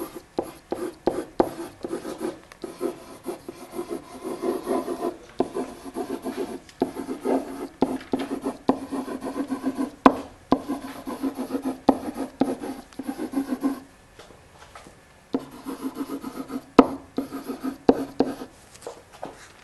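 A pen writing on a whiteboard: quick rubbing, scratching strokes in runs, with a few sharp taps as the pen meets the board and short pauses between words.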